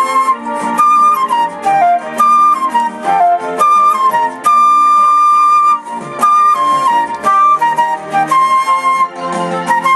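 Background music: a flute plays a stepwise melody over a lower accompaniment, with short notes and one long held note about halfway through.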